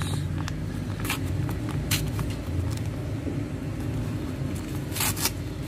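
Brown kraft-paper envelope being torn open by hand: short papery rips about one and two seconds in, and a longer tear about five seconds in. A steady low rumble runs underneath.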